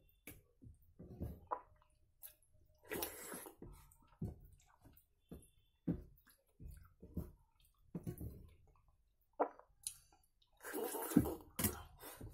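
Fingers mashing and mixing soft, wet fena bhat (rice with its starchy cooking water) on a steel plate: irregular wet squelches and light clicks against the metal, with a few louder wet bursts about three seconds in and near the end, and chewing between.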